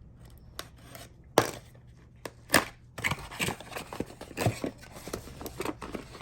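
Product packaging being opened and handled: two sharp snaps, then a run of quick crinkling, rustling and light knocks as the box contents are unpacked.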